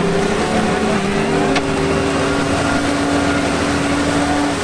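ATAC-V Patrol's diesel engine revving under load as its big low-pressure tires spin in soupy swamp mud, throwing mud; the engine pitch rises about a second in and holds high. The stock tires lack grip in the mud and the vehicle is stuck.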